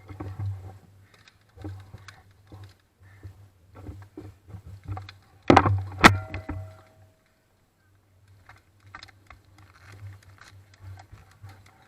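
Airsoft gunfire and gear noise: scattered sharp clicks and knocks over a low hum. Two loud cracks come about five and a half and six seconds in, the second followed by a short ringing tone.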